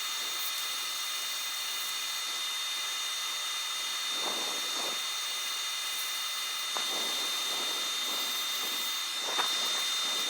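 Power sanding of turned wood at 80 grit: a steady high motor whine over a rushing, abrasive hiss, with a few brief scratchy passes.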